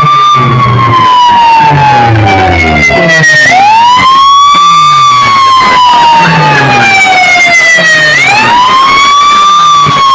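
A siren effect in a competition DJ track, played at full volume through a large outdoor speaker system. It is a wailing tone that shoots up and then slides slowly down, starting over twice (about 3.5 and 8 seconds in), over short falling bass tones that repeat underneath.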